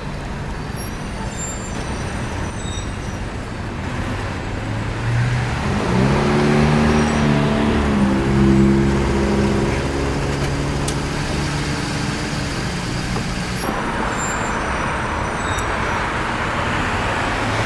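Road traffic with a car engine running close by; its pitch rises about six seconds in and then holds steady for several seconds before fading back into the traffic noise.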